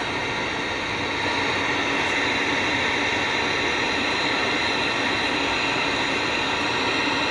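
Untuned 1970s KMC black-and-white tabletop CRT television hissing static from its speaker with no signal on the tuner, a steady even hiss that gets a little louder about a second in.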